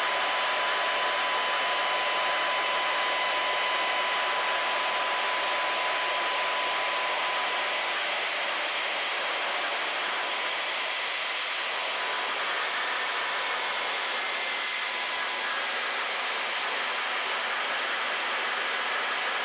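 Steady cockpit noise of a Cessna Caravan in flight: an even hiss from the single turboprop engine and the airflow, with faint steady whining tones over it.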